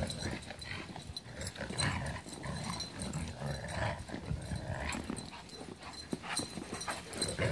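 Alaskan Malamutes playing together, vocalising and scuffling in snow in short, irregular sounds.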